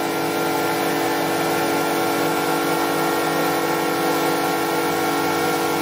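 An air compressor running alongside a CNC router spindle milling clear acrylic with a small end mill, while an air jet blows the swarf away. Together they make a steady mechanical hum with several held tones over a hiss.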